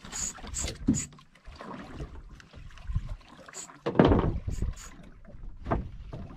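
Sea water slapping and lapping against the hull of a small drifting boat, with wind on the microphone, a few short sharp clicks and a heavier thump about four seconds in.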